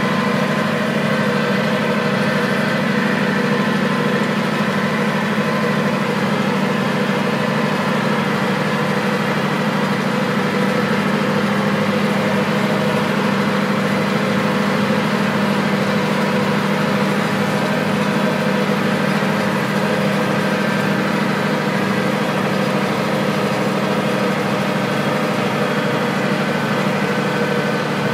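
Ford 7610 tractor's turbocharged diesel engine running steadily at a constant speed.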